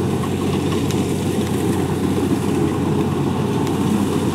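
Kubota DC70 combine harvester's diesel engine running steadily as the machine moves forward through the rice.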